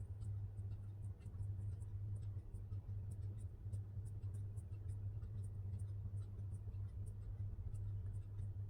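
A low, steady electrical hum with faint, quick ticks over it; no siren is sounding.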